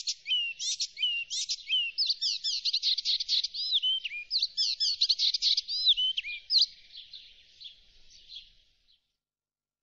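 Icterine warbler singing: a fast, varied run of high repeated phrases and sweeping notes, which fades away over the last few seconds and stops shortly before the end.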